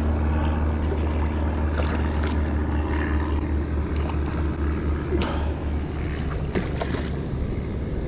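A big hooked bass splashing and thrashing at the water's surface as it is brought to hand, heard as several short splashes over a steady low wind rumble on the microphone.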